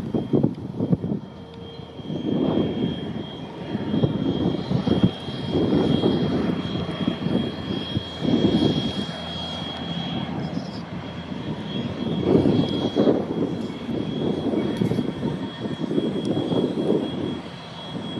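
Queensland Rail C17 class 4-8-0 steam locomotive working slowly away, its exhaust rising and falling in uneven swells every second or two.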